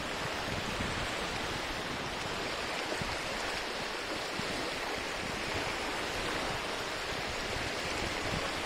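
Small lake waves breaking and washing onto a sandy shore: a steady, even hiss of surf with no single wave standing out.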